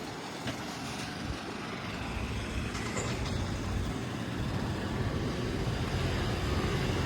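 Golf cart being driven, a low rumble of its running gear that grows steadily louder, with a few light knocks.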